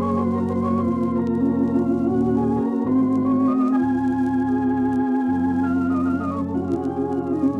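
Organ music: slow, sustained chords with a wavering vibrato, moving to a new chord every second or so, as the radio drama's closing music.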